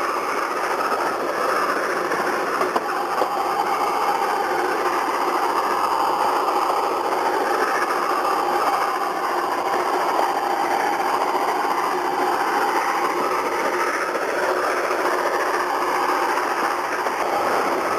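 A 750 mm narrow-gauge steam train running, heard from one of its coaches: a steady rumble and rattle of the carriages on the track, with an occasional click.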